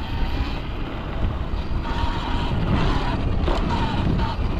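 Electric dirt bike riding, its motor giving a faint high whine that rises now and then with the throttle, under heavy wind buffeting on the mounted camera's microphone.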